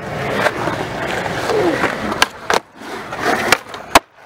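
Skateboard wheels rolling on concrete, with several sharp clacks of a board striking the ground, the loudest near the end.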